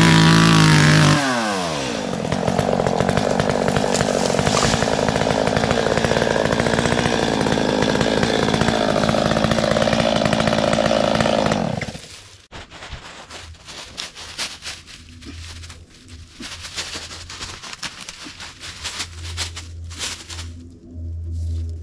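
Stihl 250 two-stroke chainsaw revving, then running steadily under load as it cuts firewood, cutting off suddenly about twelve seconds in. After that come quieter scattered knocks and clicks.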